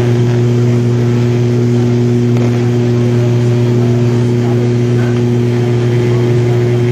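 ATR 72 turboprop cabin noise during the climb: a loud, steady propeller drone with a deep hum and several fixed higher tones over engine and air noise.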